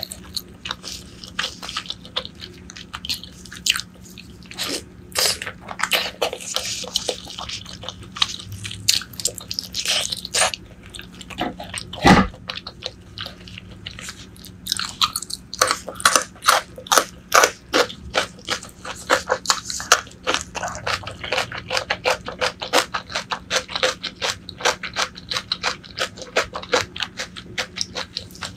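Close-miked mukbang eating of braised pork leg: chewing and biting as a dense run of quick clicks, busier in the second half. One loud thump comes about twelve seconds in.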